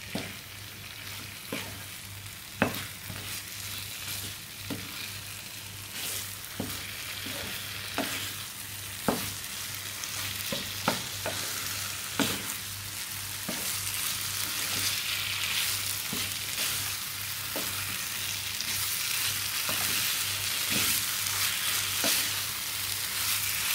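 Mutton liver masala sizzling in oil in a non-stick frying pan while a wooden spatula stirs it, with sharp taps and scrapes of the spatula against the pan every second or two. The sizzle grows louder as the masala fries down and the oil separates.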